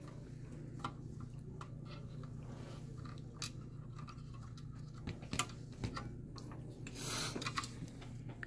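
Scattered light clicks and small scrapes of a hand screwdriver driving small screws through a motherboard into a metal mini-PC case, with the board being handled; a brief scraping rustle about seven seconds in.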